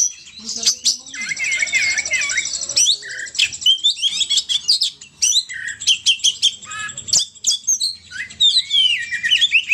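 Small songbirds chirping and trilling in a busy, overlapping stream of short sweeping calls, with a fast high trill early on. A bird-lure recording used to call in the 'burung poci'.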